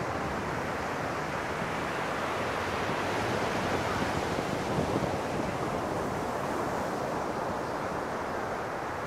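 Ocean surf breaking on a sandy beach, a steady wash that swells a little around the middle, with wind buffeting the microphone.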